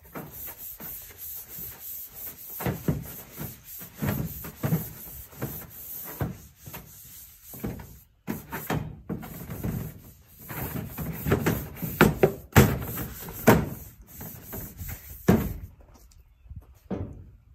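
Long-handled scrub brush scrubbing the inside of a plastic IBC tote half, in uneven strokes with scraping and occasional knocks against the plastic walls. It breaks off briefly about eight seconds in.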